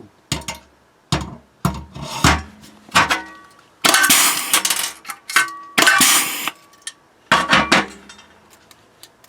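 Pneumatic riveter setting a steel rivet nut in a steel plate: a string of sharp metal clanks and knocks, with two longer loud bursts of rushing air about four and six seconds in, and brief metallic ringing.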